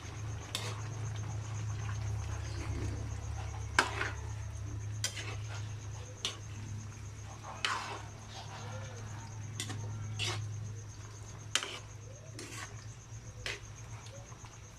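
A spoon stirring a pan of unripe papaya, sardines and coconut milk, clinking and scraping against the pan about a dozen times at irregular intervals, over a steady low hum.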